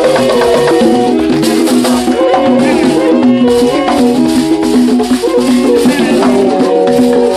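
A man singing a song through a microphone and PA, in long held and sliding notes, with a shaken rattle keeping up a steady clicking beat.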